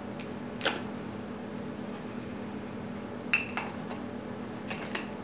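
Light clicks and clinks from a camera zoom lens being handled: one sharp click about half a second in, then small clusters of clicks a little past three seconds and near the end, over a faint steady hum.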